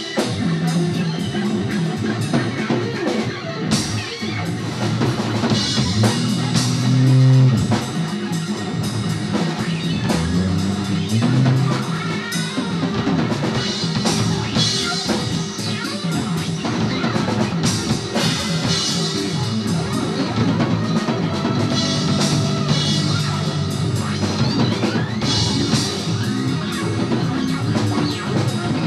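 Band music playing, with a steady drum kit beat over a held bass line.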